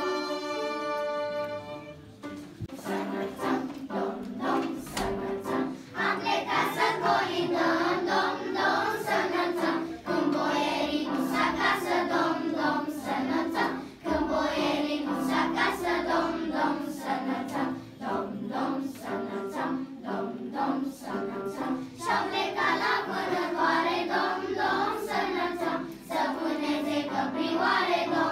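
Children's choir singing a song together, starting about two and a half seconds in, just after a violin's last held notes die away.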